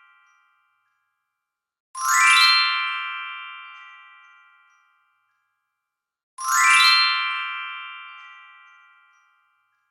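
Glistening sparkle sound effect: a quick upward run of bright bell-like chimes with a high shimmer, ringing and fading away over about three seconds. It plays twice, about four and a half seconds apart, after the tail of a previous one dies out at the start.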